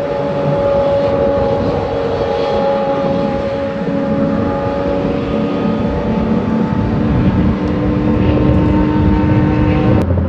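Exotic sports car engine running loud at steady, high revs, its pitch held nearly constant, with a lower rumble building in the second half and a sudden break just before the end.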